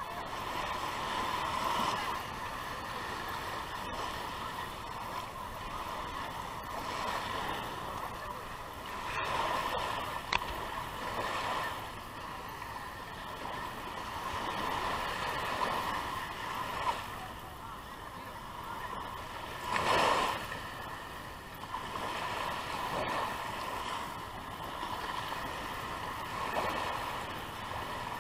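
Small waves washing in and out over a shallow sandy beach, the wash swelling and fading every few seconds, loudest about two-thirds of the way through.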